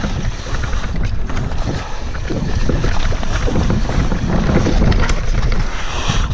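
Wind buffeting the camera microphone on a mountain bike descending a dirt trail at speed, over a steady low rumble of tyres on the ground and the bike's scattered rattles and clicks.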